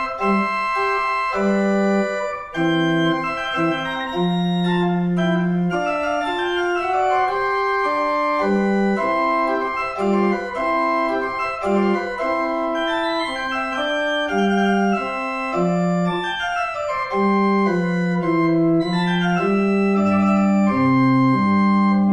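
Sampled pipe organ from a Hauptwerk virtual organ, played from an old two-manual organ console converted to a MIDI controller: a quick, lively minuet melody over bass notes, with deeper pedal notes coming in near the end.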